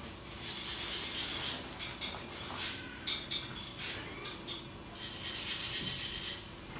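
Rubbing and rustling noise in two stretches, with a scatter of sharp clicks between them.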